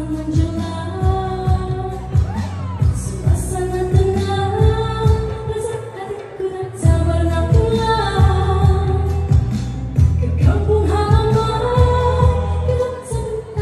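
A woman singing a Malay Hari Raya song live into a handheld microphone over a backing track with a steady beat.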